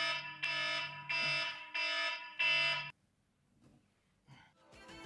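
Wake-up alarm beeping: a repeating electronic tone, about five half-second beeps in a row, that stops suddenly about three seconds in. Music fades in near the end.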